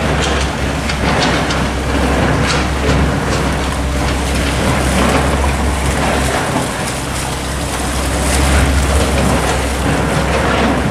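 Construction machinery running: a steady low engine drone under a rushing hiss, with scattered knocks and clatters. The drone dips briefly about six seconds in.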